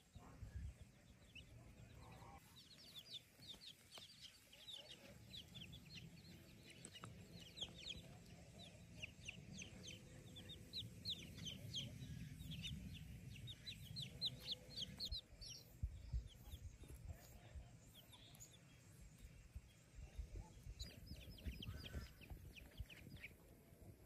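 Baby chicks peeping faintly: quick runs of short, high peeps that thin out for several seconds after the middle and pick up again near the end, over a low rumble.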